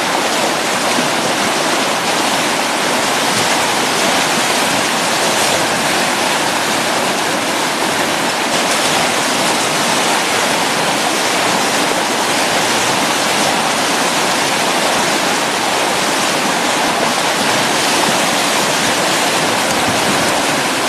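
Whitewater river rapids rushing, a loud steady roar of churning water.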